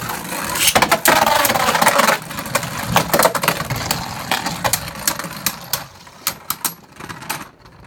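Two Beyblade Burst spinning tops whirring and clashing in a plastic stadium, with a dense run of clicks and rattles, loudest in the first two seconds. The hits then thin out and the spinning fades as the tops lose stamina, toward a survivor finish.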